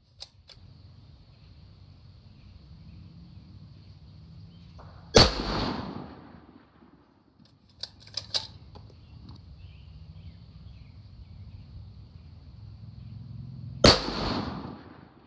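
Two shots from a 6mm Creedmoor bolt-action precision rifle, the Masterpiece Arms BA PMR Pro Rifle II, fired about nine seconds apart. Each shot has a sharp crack and rings on for about a second and a half. Between the shots there is a quick cluster of clicks as the bolt is worked to chamber the next round.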